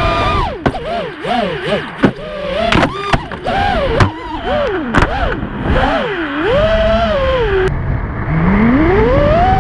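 FPV racing quadcopter's Rebel 2206 2600KV brushless motors whining, the pitch swooping up and down again and again as the throttle is worked through the turns, with several sharp knocks along the way.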